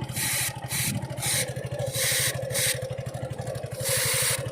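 Aerosol chain lubricant sprayed onto a motorcycle's dry drive chain in several short hissing bursts, the last one longer near the end, over the steady idle of the Suzuki Gixxer SF's engine.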